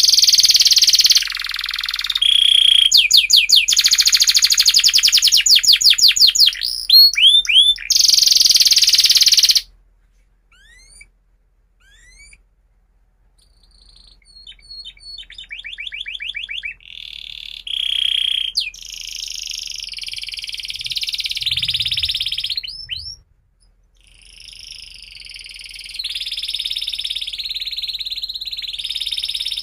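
Domestic canary singing a long song of fast trills and rolls, loud at first, breaking off about ten seconds in. After a few seconds of scattered faint chirps it takes up the song again more quietly with rattling trills and rolls.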